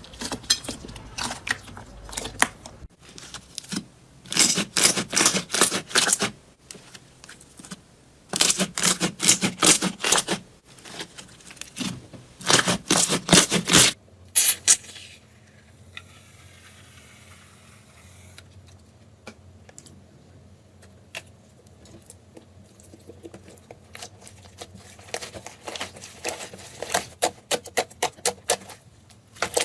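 Slime being squeezed and worked by hand, giving bursts of rapid crackling and popping, three loud bursts in the first half, then a quieter stretch before the crackling picks up again near the end.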